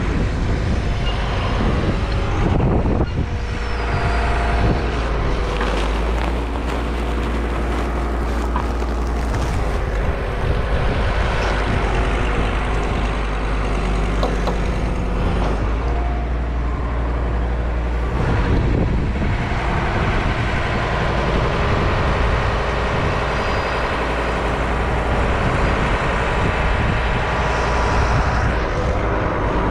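Farm loading machine's engine running continuously, its speed and pitch shifting up and down several times as it works.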